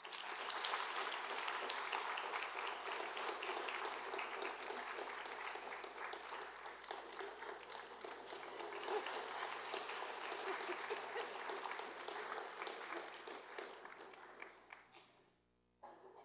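Audience applauding in a hall. It starts suddenly, holds for about fifteen seconds and fades out, with a brief last burst of clapping just before the end.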